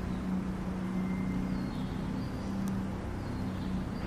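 A steady low motor drone with a faint hiss beneath it.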